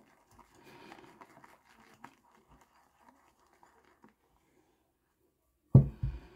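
Shaving brush whipping lather in a bowl: a faint soft scratching and crackling of foam. Near the end a single loud thump as the bowl is set down.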